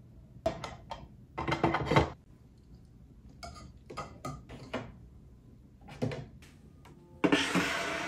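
Plastic desk accessories being handled and set in place on a white IKEA pegboard and desk: a string of light clicks and knocks, then a louder scrape near the end as a plastic organizer is set down on the desk.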